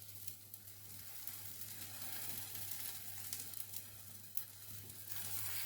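Beaten egg frying in an oiled pan: a steady sizzle with small crackles, over a low steady hum.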